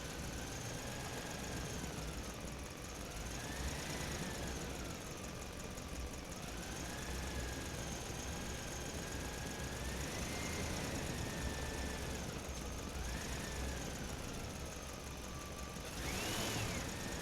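Small electric motors of a radio-controlled construction machine whining, the pitch rising and falling as it works, over a low steady rumble. Near the end the whine briefly rises higher and louder, then drops.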